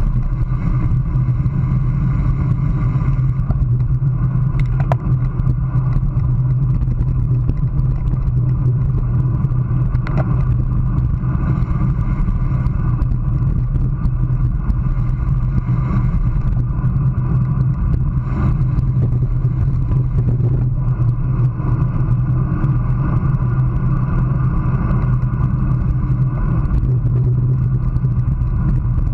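Steady wind rush over a road bike's handlebar-mounted action camera at about 23 to 25 mph, mixed with tyre noise on asphalt. A few faint clicks come through.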